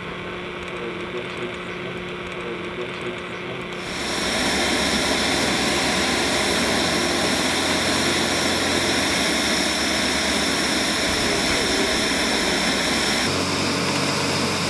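Small electric draught fan on a tin chimney extension, drawing the fire of a coal-fired Gauge 3 live-steam locomotive while steam is raised. It runs as a steady whirring hiss with a faint high whine. About four seconds in it comes in loud over a quieter hum.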